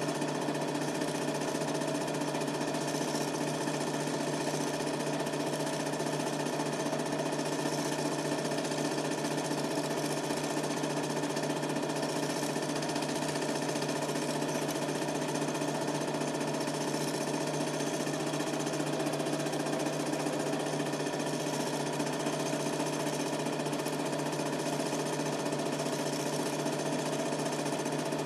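Super 8 film projector running, its mechanism clattering steadily without change, picked up by a camcorder's microphone.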